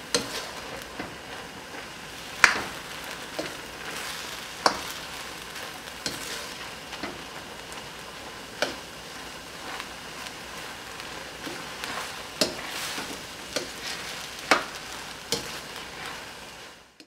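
Shrimp and yellow rice sizzling in a stainless-steel wok while a spatula stirs and turns it, with irregular sharp knocks and scrapes of the spatula against the pan. The sound fades out near the end.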